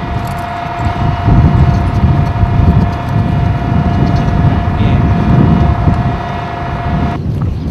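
LAV-25 armoured vehicles' diesel engines idling, a low running rumble under a steady high whine, with wind buffeting the microphone; the whine cuts off suddenly near the end.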